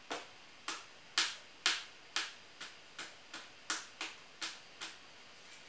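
A series of about a dozen sharp clicks or taps, irregularly spaced at roughly two a second, each with a brief ring.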